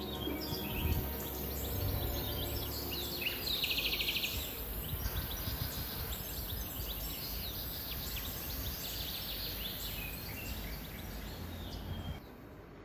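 Small birds chirping and twittering over steady outdoor background noise with a high hiss, including a dense fast trill about four seconds in; it all stops abruptly near the end.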